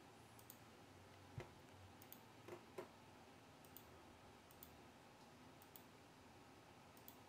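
Near silence: quiet room tone with about nine faint, short clicks at irregular intervals.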